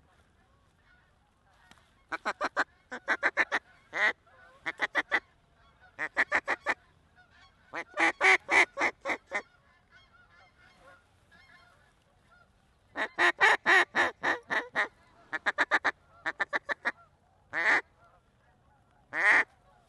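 Mallard duck call blown in loud runs of short quacks, about ten quick series with the longest runs a little before halfway and about two-thirds of the way in, then two single drawn-out quacks near the end, calling to incoming ducks.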